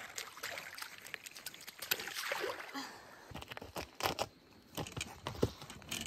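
Sneakers skimming and splashing through shallow river water, then a few sharp scuffing steps on bare rock in the last couple of seconds.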